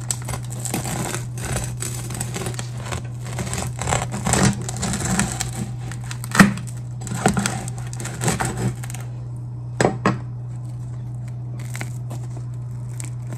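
A knife sawing through a loaf of fresh dark bread on a cutting board: crisp crackling and crunching of the crust, the loudest crack about six seconds in, with a few more crunches up to about ten seconds in. A steady low hum sits underneath.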